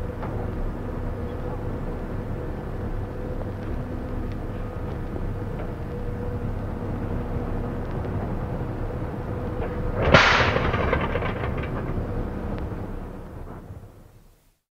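Fairey Barracuda's Rolls-Royce Merlin engine being started: a steady drone, then a single loud misfire bang about ten seconds in that rings out and fades away.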